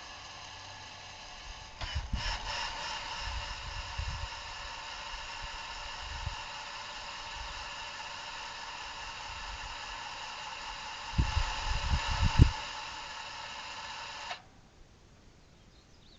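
Electric gate opener's actuator motor running with a steady whine, powered through freshly repaired wiring, stopping abruptly about fourteen seconds in. A few low knocks come about two seconds in and again near eleven to twelve seconds.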